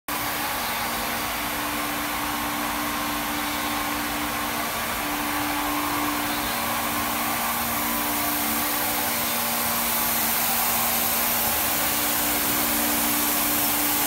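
CNC machining center running while milling an aluminium air-conditioner panel: a steady whir and hiss with two steady low hum tones.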